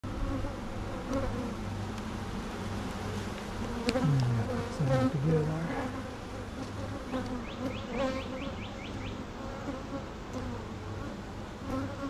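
Honeybees buzzing over an open brood box. About four seconds in, a louder buzz slides up and down in pitch, as of a bee flying close past. Then comes a quick run of short scraping strokes from a metal hive tool working burr comb off the wooden top bars of the frames.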